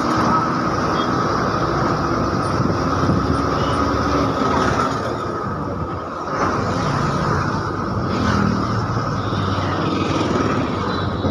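Steady running noise of a moving bus, heard from inside: engine and road rumble with a steady hum running through it, and other traffic passing close by.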